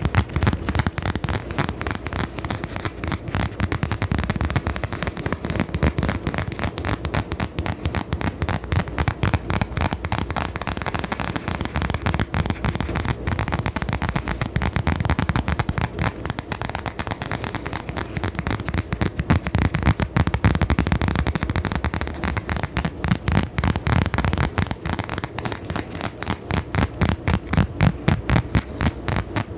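Rapid, dense crackling and scratching close to a microphone, many strokes a second without pause: ASMR trigger sounds.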